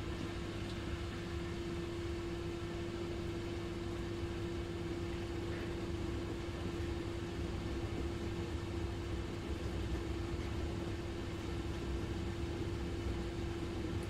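Dishwasher running: a steady motor hum with one held tone over a low rumble and a light hiss.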